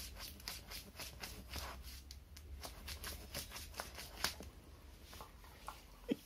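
A puppy gnawing on a hard chew, making a quick run of crisp crackling clicks that thin out after about four seconds. A short squeak comes near the end.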